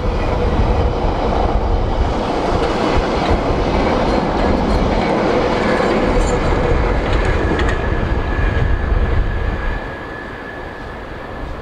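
A Bakerloo line tube train (London Underground 1972 Stock) passing on the rails, its wheels clicking over the joints, with a steady whine riding over the rumble. It drops away about ten seconds in as the train draws off.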